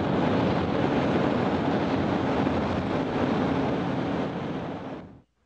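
Car driving through a road tunnel: a steady rushing road and traffic noise with a faint low hum, fading out just before the end.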